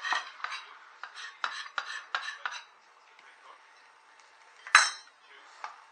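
A utensil clicking and scraping against a large bowl as stir-fried noodles are tossed: a quick run of strokes over the first couple of seconds, then one louder clack near the end.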